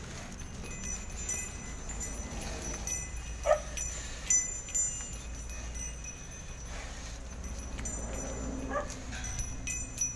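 Small bell on a decorated bull's neck jingling and ringing in short clusters as the bull moves its head, over a steady low background rumble. A few short, sharp calls stand out, about three and a half seconds in and again near nine seconds.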